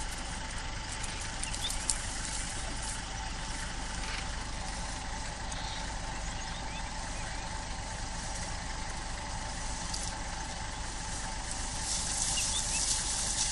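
Safari vehicle's engine running steadily as a low hum, with a brief rise in hiss near the end.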